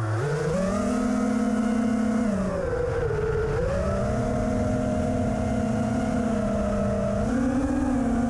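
5-inch FPV quadcopter's Emax RS2205S brushless motors whining in flight, heard from the onboard camera. The pitch follows the throttle: it climbs at the start, sags about two and a half seconds in, rises again about a second later and steps up near the end.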